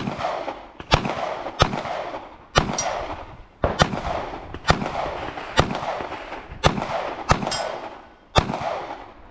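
Handgun shots fired one at a time at an uneven pace, about ten in all, each sharp crack followed by a short echo off the range.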